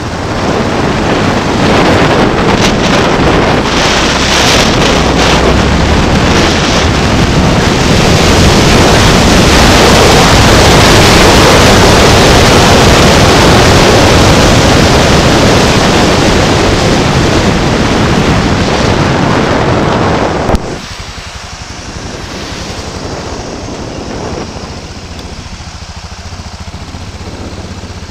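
Wind buffeting the microphone of a bicycle-mounted camera while riding: a loud, even rushing noise that cuts off abruptly with a click about twenty seconds in, leaving a quieter steady rush of road and traffic noise.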